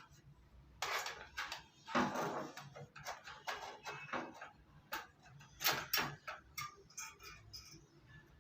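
Motherboard being fitted into a desktop computer case: irregular clicks, knocks and short scrapes as the board and parts are handled against the chassis.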